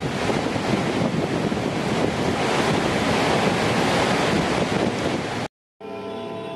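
Steady rushing roar of a large waterfall, cutting off abruptly about five and a half seconds in. After a brief silence, music with sustained tones begins near the end.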